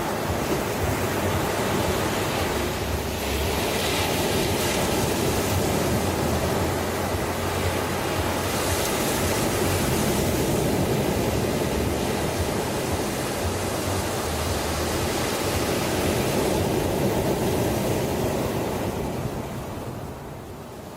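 Ocean surf: waves breaking and washing in as a continuous hiss that swells and recedes, with the wash dying down near the end.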